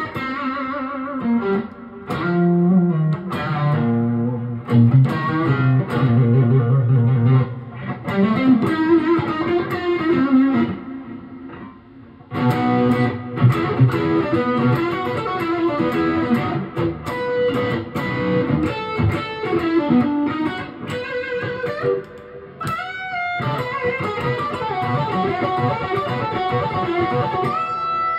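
Electric guitar played through a Tone City King of Blues overdrive pedal: blues phrases with string bends, dying away briefly near the middle before the playing picks up again.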